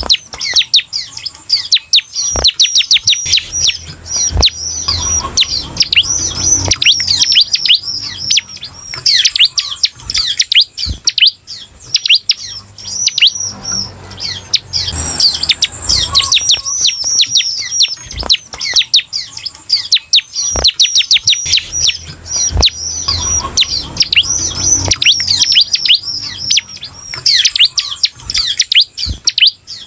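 Bar-winged prinia (ciblek) singing: a fast, nearly continuous run of sharp, high, downward-sweeping chirps, several a second, with a few short breaks. A few soft low knocks are heard now and then.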